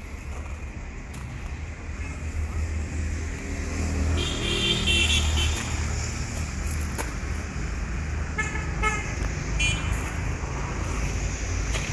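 Road traffic with vehicle horns honking: one longer honk about four seconds in, then two short honks a few seconds later, over a steady low rumble.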